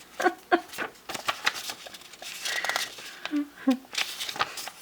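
A person laughing softly in short breathy bursts, tailing off into light clicks and rustling.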